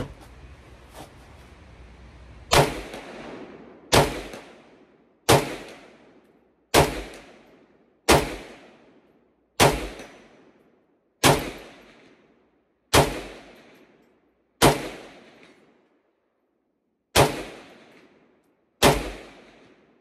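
Vector Arms-built Polish AK underfolder rifle in 7.62x39 firing about a dozen single aimed shots, roughly one every one and a half seconds, with a longer pause near the end. Each loud crack is followed by an echo that dies away over about a second. A light click comes about a second in, before the run of shots.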